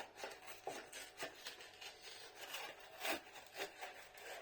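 Sealed lid of an instant noodle tub being peeled back slowly, with faint crackling and rubbing and a few soft ticks as the lid comes away from the rim.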